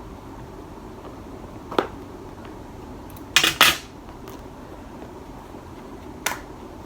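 Sharp clicks and knocks from handling and opening the camera's retail box: one about two seconds in, a louder double knock a little after the middle, and another near the end.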